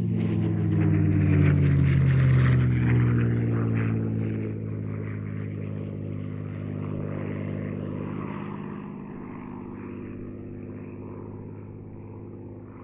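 P-51D Mustang's Packard Merlin V12 engine on a low fly-past, loudest about two seconds in, with the pitch dropping as it goes by. The engine then fades steadily as the aircraft draws away.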